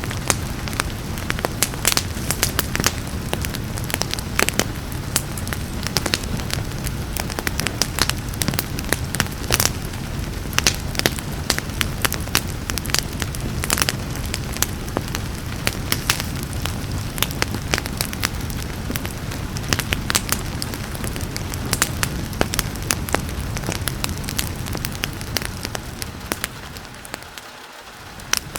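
Wood fire crackling, with frequent sharp pops over a steady hiss of rain. The sound dips briefly near the end, then comes back.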